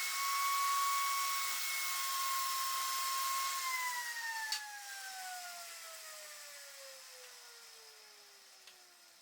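Small electric power tool running freely at a steady high whine, then switched off about three and a half seconds in and winding down, its pitch falling steadily as it fades, with a click shortly after switch-off.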